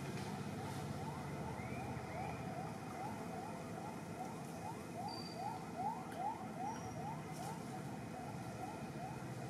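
A rapid series of short rising calls, about three a second, loudest midway, over a steady low background rumble.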